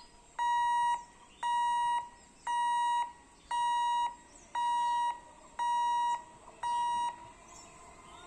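Level-crossing warning beeper sounding a steady electronic beep about once a second, each beep a little over half a second long, as a train approaches; it stops about seven seconds in.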